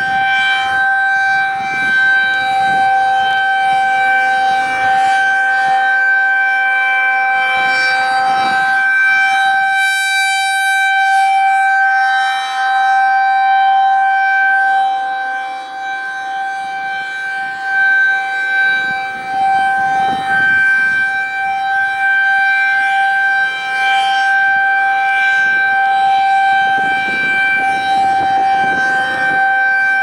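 Federal Signal 2001-SRNB rotating siren sounding its steady single-tone alert at about 776 Hz, the volume swelling and dipping as the horn turns.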